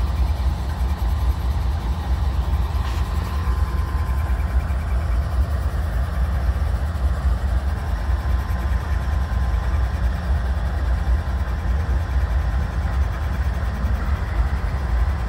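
Norfolk Southern diesel-electric locomotives' engines running with a steady deep rumble as the units creep by at low speed, a faint steady whine underneath.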